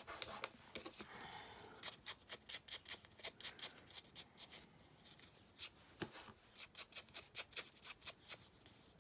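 Quick, light pats of a foam ink blending tool dabbing ink onto a scrap of paper, about three or four a second with a short pause midway, after a little soft rubbing at the start.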